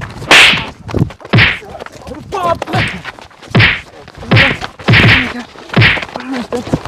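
A run of loud punches and slaps landing in a staged fistfight, about seven sharp whacks in six seconds.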